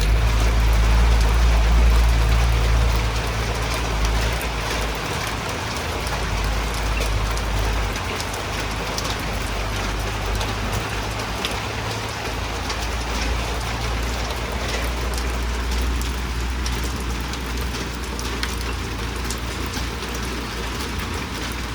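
Steady rain falling, a constant hiss dotted with the patter of individual drops, over a low rumble that is heaviest in the first few seconds.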